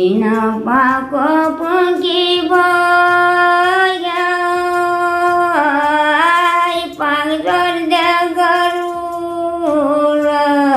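An elderly woman singing a Thadi bhaka folk song unaccompanied, in long drawn-out notes, with short breaks between phrases.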